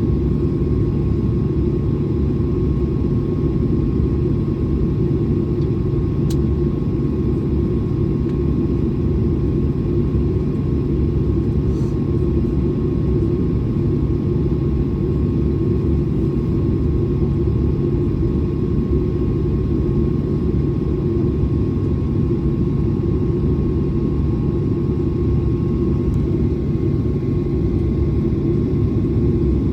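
Airliner jet engines running steadily, heard as a constant loud rumble with a steady hum and no rise or fall in pitch.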